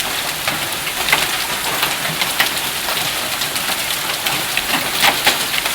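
Hailstorm of golf-ball and marble sized hailstones pelting down: a dense, steady clatter broken by frequent sharp, irregular impacts of individual stones.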